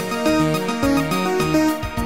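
Background music: a tune of short pitched notes changing every quarter to half second over a bass line.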